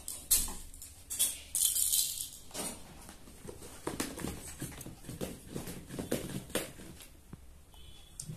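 Plastic toys rattling and clattering as a small child rummages through them in a cardboard box, busiest in the first couple of seconds, then softer rustling and scattered clicks.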